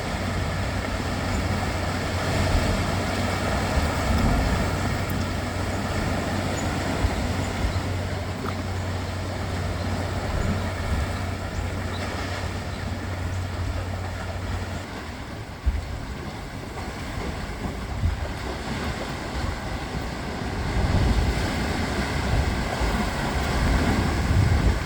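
Sea surging and washing in a sea-cliff blowhole, with wind rumbling on the microphone. A steady low rumble under it stops about fifteen seconds in.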